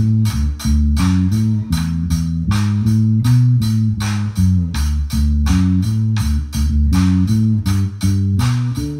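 Drum kit and electric bass guitar playing an upbeat groove: steady, quick drum and cymbal hits over a bass line that moves from note to note.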